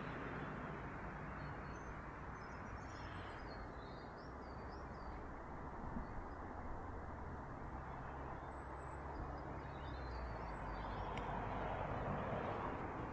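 Outdoor ambience: a steady low rumble of distant traffic with faint bird chirps now and then.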